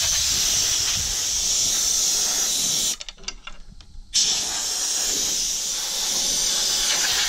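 Compressed air hissing steadily from an air-hose blow gun, blasting chaff and trash off a tractor's radiator screen. The air cuts off for about a second midway, with a few small clicks, then blows again.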